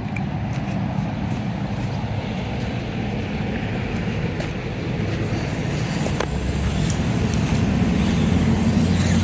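A motor vehicle's engine running steadily, a low hum that slowly grows louder, with a few faint clicks.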